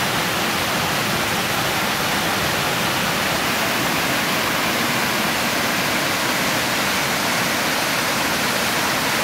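Small mountain stream pouring over rocks and logs in a series of cascades: a steady rush of white water.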